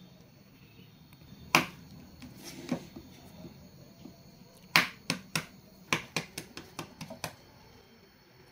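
A freshly hard-boiled egg being tapped on a tabletop to crack its shell for peeling: a single knock about a second and a half in, then a quick run of about ten sharp taps and cracks, about four a second.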